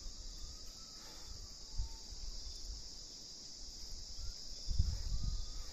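Steady high-pitched chorus of crickets. A few faint short bird calls sound over it, and a low rumble comes in near the end.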